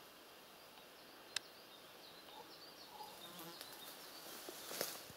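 Faint buzzing of flying insects, with a single sharp click about a second and a half in and another short noise near the end.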